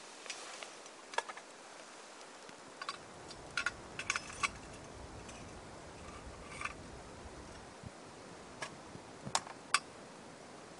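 A utensil clicking and scraping against a frying pan as eggs are stirred over a Trangia alcohol stove: a scattering of short sharp ticks, a cluster about four seconds in and a few more near the end, over a faint steady hiss.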